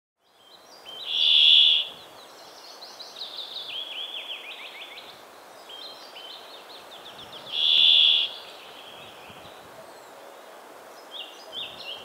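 Brambling singing: two long, loud buzzy notes, the first about a second in and the second about six seconds later. Quicker chirps and falling whistled notes sound between them, and a few short notes come near the end.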